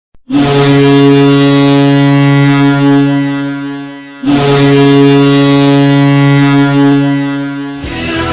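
Ice hockey goal horn sounding two long blasts of about four seconds each on one steady low note. Goal music starts just before the end.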